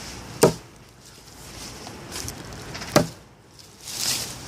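Hatchet chopping into a log: two sharp blows about two and a half seconds apart.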